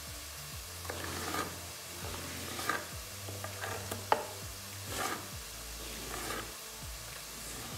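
Kitchen knife cutting lengthwise through a zucchini on a wooden cutting board: several separate cuts, each a short crunch through the flesh ending in a tap of the blade on the board, with one sharp knock about four seconds in the loudest.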